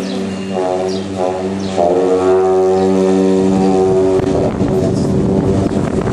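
Two gyaling, Tibetan monastic long horns, played together in long held notes, with a few short swells in the first two seconds and a rougher, buzzier tone in the second half.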